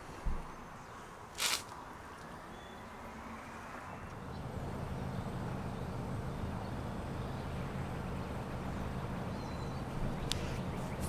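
A thump, then a short hiss-like noise burst, then from about four seconds in a motor vehicle engine running steadily with a low hum.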